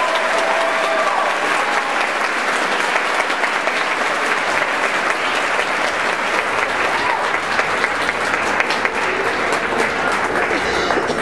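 Audience applauding steadily, a dense patter of many hands clapping, as the last held notes of the music fade out in the first second.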